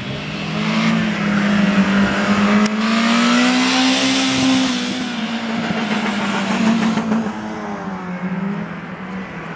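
Peugeot 206 hatchback's engine running hard as the car drives a cone course and passes close by. Its note rises to a peak with a swell of road and tyre noise about four seconds in, then falls away as the car pulls off.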